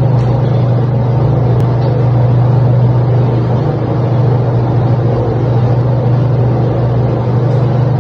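A steady, loud, low mechanical hum that does not change.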